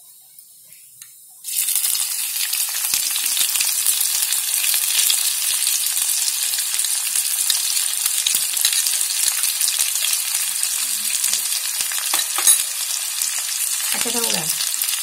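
Sliced onions dropped into hot oil with cumin seeds in a cast-iron wok, setting off a sudden sizzle about a second and a half in. The onions then keep frying with a steady, dense hiss.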